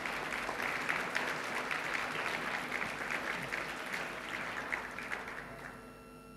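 An audience applauding in a large hall. The clapping fades out about five and a half seconds in.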